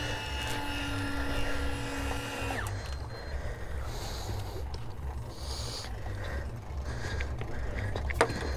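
Electric fishing reel's motor whining steadily as it winds line in, then cutting off about two and a half seconds in. A low rumble runs underneath, and there are a couple of sharp knocks near the end.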